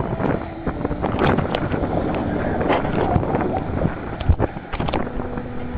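Wind buffeting the microphone in uneven gusts, with scattered pops and crackles.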